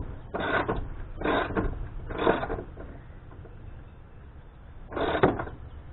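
Hand ratchet clicking as it drives in the battery hold-down bolt: three short strokes about a second apart, then a pause and one more stroke about five seconds in.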